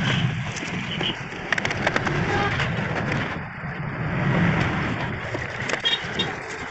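Tata Super Ace engine and starter turning over or running, heard from underneath at the starter motor, with a fast low pulsing; it stops near the end.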